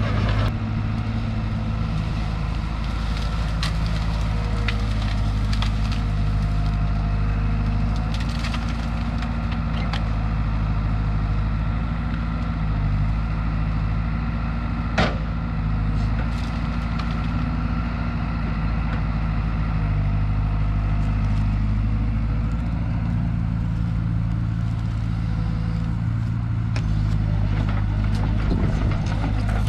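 Cat E120B hydraulic excavator's diesel engine running steadily, with scattered cracks of breaking brush and one sharp crack about halfway through.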